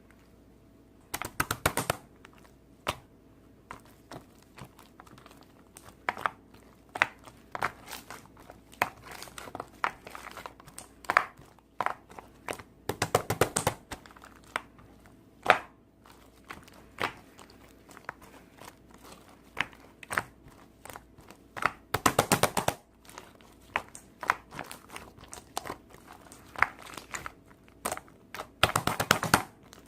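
Close-up irregular clicks and taps, broken by several second-long bursts of rapid clicking or crinkling, in a small quiet room.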